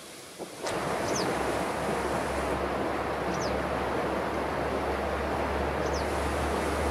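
A steady rushing noise that starts suddenly under a second in, with a low rumble beneath it and three faint, short, high chirps spread through it.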